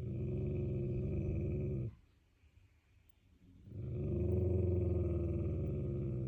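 Person snoring: two long, rough snores of about two and a half seconds each, each swelling in and cutting off sharply, with a pause of nearly two seconds between them.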